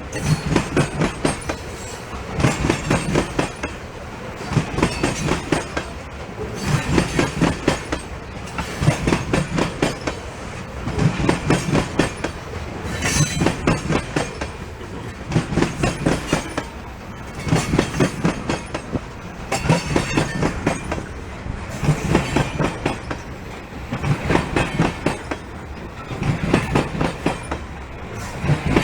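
Loaded ethanol tank cars of a freight train rolling past, their wheels clicking over the rail joints in a clickety-clack. The clicks come in a cluster about every two seconds as each car's wheel sets pass, over a steady rolling rumble.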